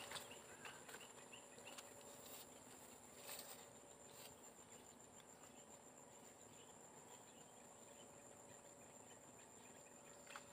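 Faint steady high-pitched insect drone, with a few soft taps and faint chirps over it.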